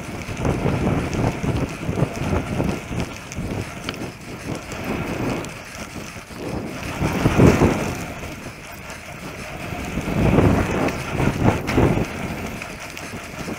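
Wind rushing over the camera microphone and mountain-bike tyres rolling and rattling over a hard-packed gravel singletrack at speed. The noise swells louder about halfway through and again shortly after.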